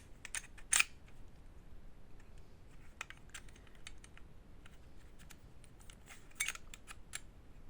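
Scattered small clicks and clacks of a Sig Sauer P320 airsoft pistol's aluminium slide and parts being handled and fitted during reassembly. The sharpest click comes under a second in, with small clusters about three seconds and six and a half seconds in.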